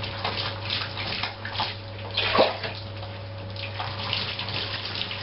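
Rinse water splashing and running off a small dog's wet coat into a bathtub, in uneven spurts, with a louder splash about two and a half seconds in.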